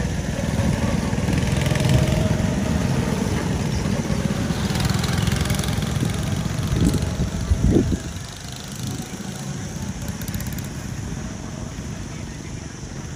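Go-kart engines running as karts lap the circuit, a steady buzzing drone that eases off, a couple of sharp thumps just before it drops about eight seconds in.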